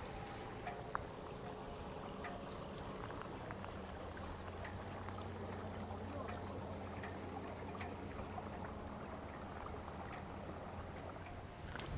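Engine of a motor cruiser passing on the river: a low, steady drone that comes up about three and a half seconds in and holds.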